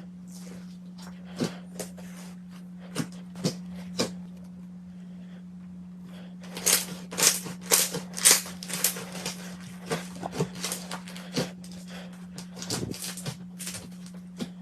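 Slime being squeezed and pressed by hand, giving irregular sharp pops and clicks that come thickest about halfway through, over a steady low hum.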